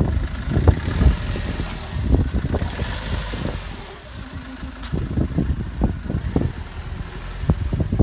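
Opel Vivaro van's engine idling, with irregular wind buffeting on the microphone.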